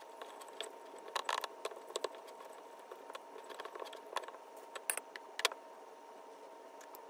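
A glass baking dish being handled on a stone countertop: scattered light clinks and taps of hand and glass, the loudest a little after a second in and again about five seconds in, over a faint steady hum.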